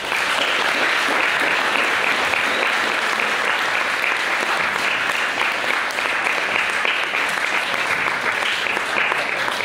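Audience applause that starts suddenly and holds steady.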